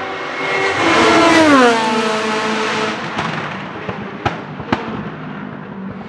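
Rebellion R-13 LMP1 prototype's Gibson GL-458 4.5-litre V8 racing past at speed, its engine note climbing to a loud peak about a second in and then sliding steeply down in pitch as it goes by. A couple of seconds later come two sharp exhaust pops, half a second apart.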